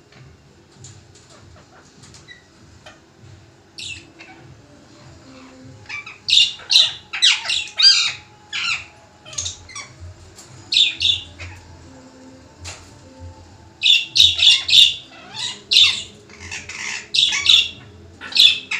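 Rose-ringed parakeet giving loud, harsh, repeated squawks in bouts, starting about six seconds in, with a short pause a little past the middle; an agitated, angry-sounding pet parrot.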